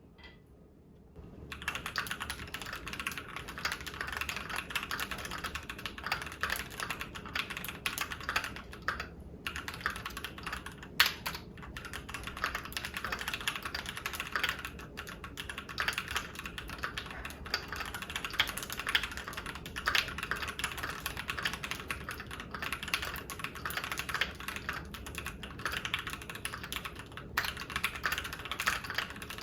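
Fast, continuous typing on a Keychron Q1 mechanical keyboard with Keychron K Pro Brown tactile switches, starting about a second and a half in, with a couple of short pauses and one louder clack about a third of the way through.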